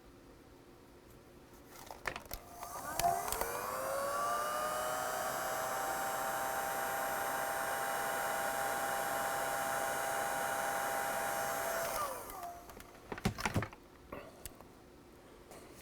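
Heat gun switched on, its fan motor spinning up to a steady whine with a rush of air for about ten seconds while shrinking heat-shrink tubing onto a cable, then winding down when switched off; a few handling clicks before and after.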